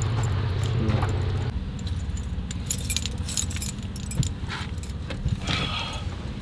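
A bunch of keys on a lanyard jangling in the hand, in clusters of sharp clicks, with a few knocks and rustles as a person climbs into a car's driver's seat.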